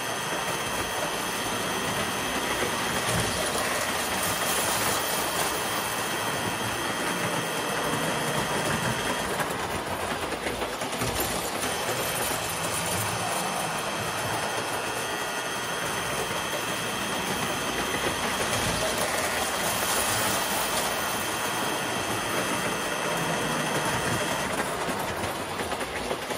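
Standard gauge toy steam train running on tinplate track: electric motor and gear whine with wheels clattering over the rails. It swells and fades as the train comes round the loop.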